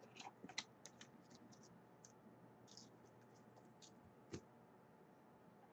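Faint clicks and scratches of trading cards and clear plastic card holders being handled and set down on a tabletop, with one louder knock about four seconds in.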